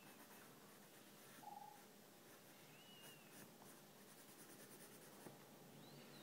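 Faint scratching of a pencil drawing and shading on sketchbook paper.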